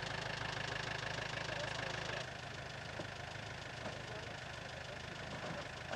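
Off-road vehicle's engine idling steadily; the sound drops a little in level about two seconds in.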